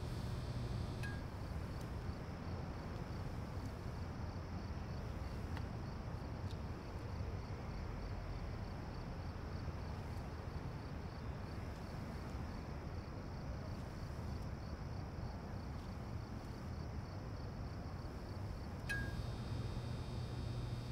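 Outdoor pole lamp's electrical hum cuts off with a click about a second in as the light goes out. A steady low rumble remains, with a faint, evenly pulsing high chirring. Near the end another click sounds and the hum returns as the lamp switches back on.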